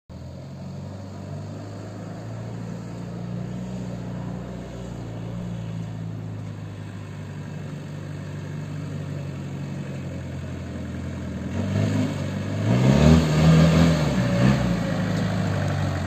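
A pickup truck engine running steadily, then revving up and down a few times from about twelve seconds in, louder.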